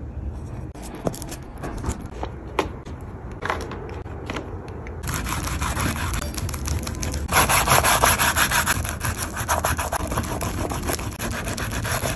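A few light taps and scrapes, then from about five seconds in an oil pastel stick rubbed hard across paper in rapid back-and-forth strokes, a dense scratchy rubbing that is loudest in the middle stretch.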